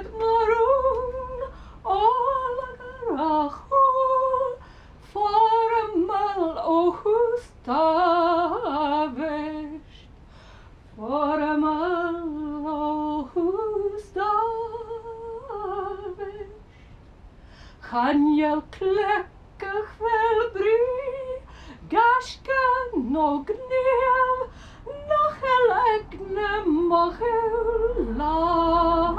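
A woman singing solo and unaccompanied, in phrases with vibrato on the held notes, pausing twice for breath between phrases.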